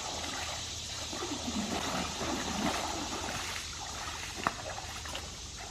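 Creek water trickling and splashing steadily, with a single sharp click a little after four seconds in.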